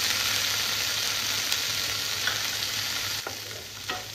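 Sweet corn kernels and green capsicum sizzling in butter in a non-stick frying pan. About three seconds in the sizzle dies down, and a wooden spatula stirring in the pan gives a few sharp taps.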